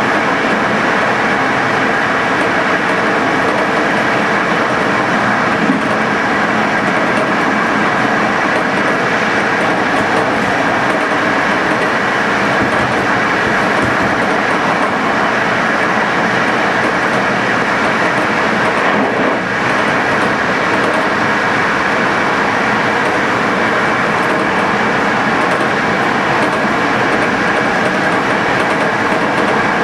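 Passenger train running at speed, a steady rolling noise of wheels on rails with faint steady tones through it.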